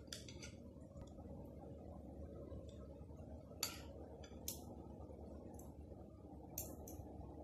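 Metal spoon and fork clinking lightly against a glass bowl and the serving tray while food is spooned out, a handful of short clinks spaced irregularly over a low steady room hum.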